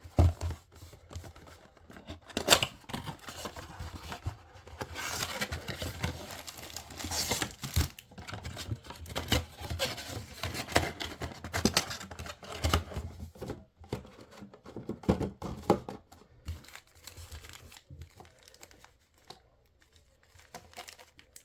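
Trading-card blaster box packaging being torn open and handled: irregular tearing and crinkling of cardboard and pack wrappers, with sharp clicks. The handling is busiest through the middle and quieter near the end.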